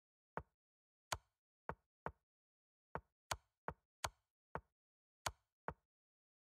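Chess.com digital move sounds: eleven quick, faint wooden-piece clicks at an uneven pace, one for each move of a fast bullet game. The four checking moves give sharper, brighter clicks.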